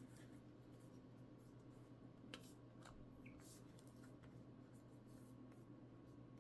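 Near silence: a steady low hum with a couple of faint clicks about two and a half seconds in.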